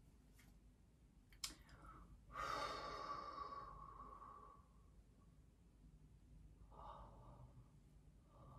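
A woman's long breath out through pursed lips, lasting about two seconds and fading away, with a faint click just before it; otherwise near silence.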